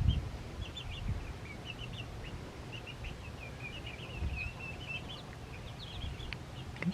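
Young chickens peeping: a steady stream of short, high chirps.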